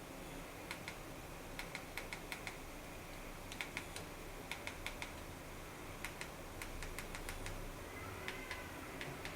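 Plastic buttons on a Mi TV Stick remote control clicking as they are pressed repeatedly, in quick irregular bursts of a few presses each.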